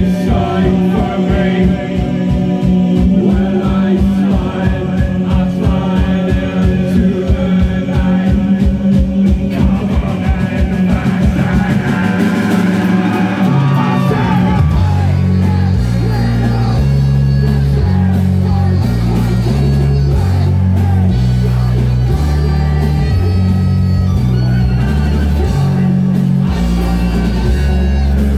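Live rock band playing loudly, with a male singer singing into the microphone over guitar and drums. A fast pounding beat of about four strokes a second drives the first twelve seconds, the low end drops out briefly, then a heavy bass line steps between notes.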